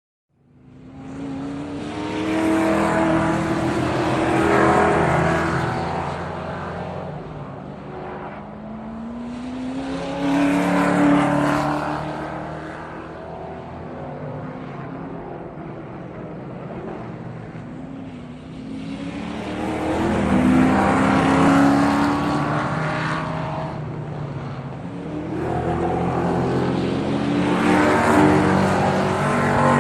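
Sports car engines accelerating hard, the engine note climbing in pitch and swelling loud four times, with quieter stretches between as each fades.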